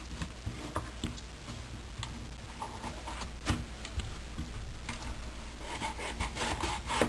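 A kitchen knife cutting and scraping raw papaya on a chopping board: scattered taps of the blade on the board, a sharper knock about three and a half seconds in, and a run of rasping scraping strokes near the end.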